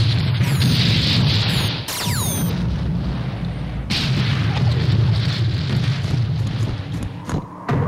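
Film sound-effect explosions: a continuous deep rumble of blasts with crackling, and a few falling whistles about two seconds in.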